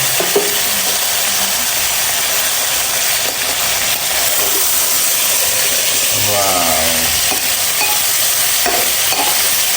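Pieces of hill goat meat sizzling as they fry in a pan, with stirring. The meat is starting to give up its own fat.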